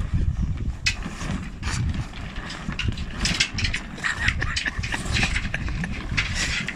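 Wind buffeting the microphone while a sail is handled on deck, with rustling sail cloth and scattered irregular mechanical clicks.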